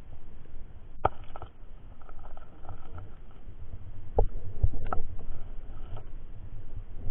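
Recorded underwater in a shallow stony river: low, muffled rumbling of moving water with a few sharp clicks and knocks against the stones, the loudest a little after four seconds in.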